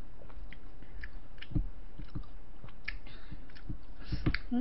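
Close mouth sounds of chewing and eating shaved-ice dessert (bingsu), with scattered small clicks and a couple of brief scrapes of a wooden spoon in the cup, about three and four seconds in.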